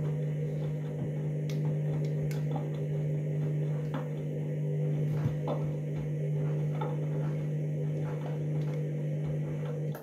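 Candy washing machine humming steadily during its long start-up phase: a constant low electrical tone with faint scattered clicks and taps over it.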